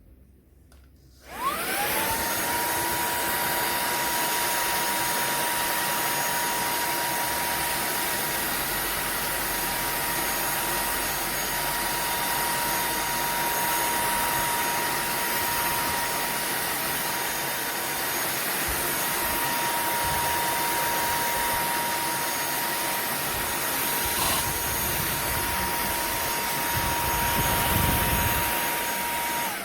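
Cordless handheld vacuum cleaner switched on: its motor spins up with a rising whine to a steady high whine over rushing air, runs for almost half a minute, then is switched off near the end, its pitch falling as it winds down.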